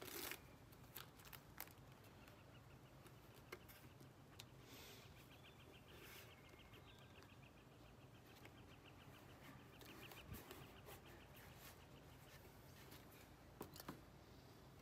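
Near silence: faint taps and rustles of hands fitting the two halves of a costume helmet together, with a faint fast, even ticking in the background for several seconds in the middle.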